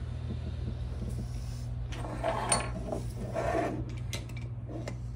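Light handling of metal parts over a steady low hum: a 90-degree air fitting is turned into the top plate of an air-ride bag, then a wrench is picked up and set on the fitting, with soft scrapes and clicks about two and three and a half seconds in.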